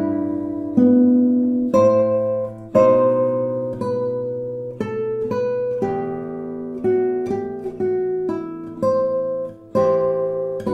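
Solo classical guitar playing Baroque lute music in a guitar transcription: separate plucked notes and chords, about one or two a second, each ringing on and dying away.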